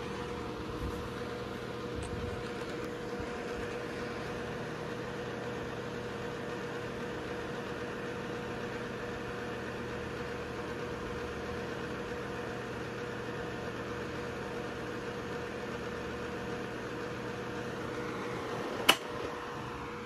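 Vintage early-1980s Artic Breeze OF12 12-inch table fan running steadily: an even hum with the rush of air from the blades. A single sharp click near the end.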